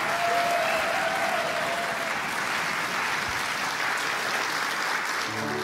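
Studio audience applauding steadily. A piano starts playing just before the end.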